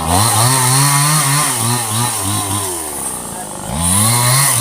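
Two-stroke chainsaw revved to full throttle, its pitch wavering under load as it cuts teak wood. It drops back about three seconds in, then revs up again near the end.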